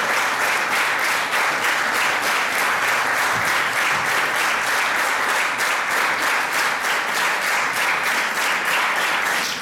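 Audience applauding: dense, steady applause.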